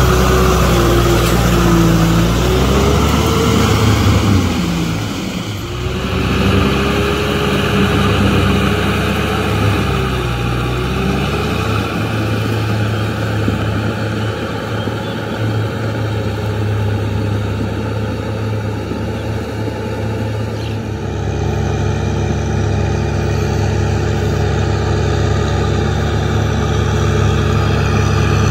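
Kubota M6040SU tractor's four-cylinder diesel engine running under load while it works a rotary tiller through wet paddy mud. The engine note dips and recovers twice in the first dozen seconds, then holds steady and stronger near the end.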